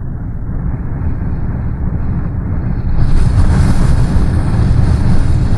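Strong hurricane wind blowing in a dense, low, rushing noise; about three seconds in it turns brighter and louder, with hiss reaching much higher.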